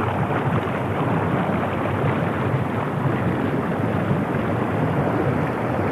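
Steady rush of river water flowing and rippling close to the microphone.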